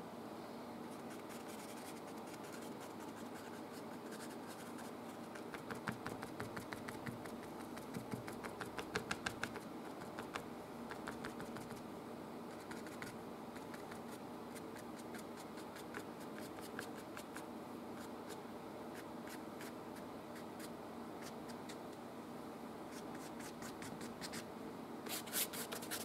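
Paintbrush scratching and dabbing oil paint onto canvas in quick short strokes, bunched about six to ten seconds in and again near the end, over a steady low hum.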